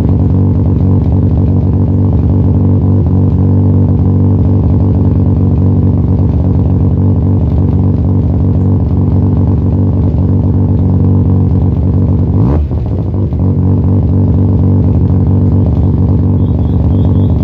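Mazda RX-7 FC3S's bridgeported 13B twin-rotor turbo rotary engine idling at the tailpipe with the choppy 'brap' idle of a bridgeport. About twelve seconds in it revs up sharply once and drops back to idle.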